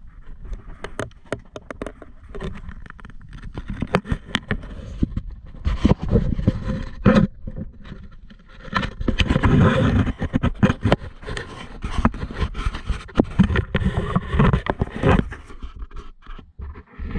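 Handling noise from a handheld action camera on a floating grip: irregular scraping and rustling as it rubs against a jacket and the berth, with many sharp knocks and clicks, heaviest through the middle.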